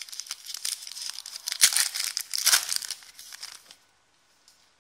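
Foil wrapper of a trading card pack crinkling and tearing as it is opened and handled, with many small crackles; it stops about three-quarters of the way through.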